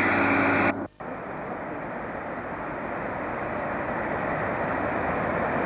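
Diesel multiple unit's engine hum, cut off suddenly about a second in, followed by the steady rumble of an approaching diesel locomotive hauling tank wagons, which grows gradually louder.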